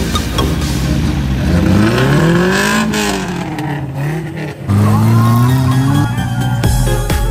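A car engine revving up and back down over electronic dance music, rising through the first half and falling away near the middle.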